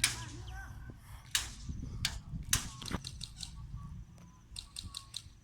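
Airsoft guns firing single shots: about five sharp cracks, irregularly spaced, in the first three seconds, followed by several fainter pops.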